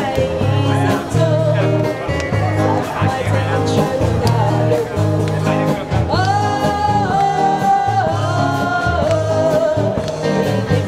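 Live street band playing over a steady, regular bass beat, with a sung melody on top from two women singing a duet. Longer held notes come in about halfway through.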